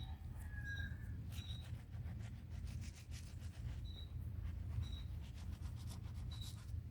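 Brush scrubbing old concrete by hand: quick scratchy strokes, busiest in the first half, under a high chirp that repeats about once a second and a steady low hum.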